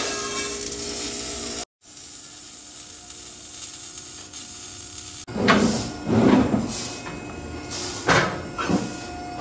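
Exhaust-shop workshop noise: a steady hiss, then several irregular loud bursts of tool and work noise from about five seconds in.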